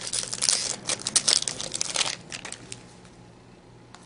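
Foil wrapper of a hockey trading-card pack crinkling and tearing as it is opened, for about two seconds. After that only faint handling of the cards.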